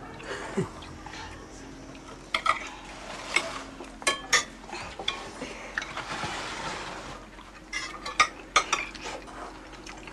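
Metal spoon clinking and scraping against a plate during a meal, with irregular sharp clinks and a softer scrape about six seconds in.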